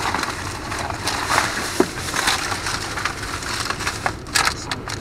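Thin plastic bags crinkling and rustling in irregular bursts as hands dig through them.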